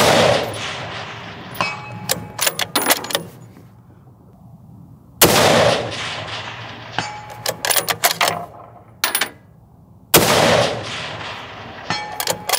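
Three rifle shots from an APR (Alamo Precision Rifles) Ranger bolt-action rifle in 6.5 Creedmoor, about five seconds apart, each with a long echoing tail. About a second and a half after each shot comes a quick cluster of metallic clicks with a brief ring as the bolt is worked.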